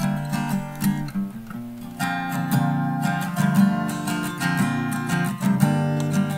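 Acoustic guitar being strummed in a steady rhythm, chords ringing out. The chord changes about two seconds in and again near the end.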